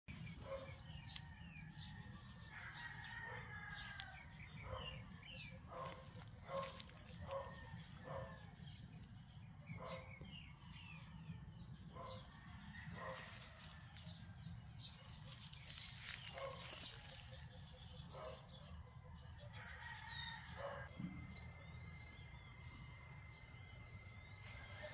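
Chickens clucking in a run of short, evenly repeated calls, mostly in the first half, with small birds chirping higher up. A steady high-pitched hum runs underneath.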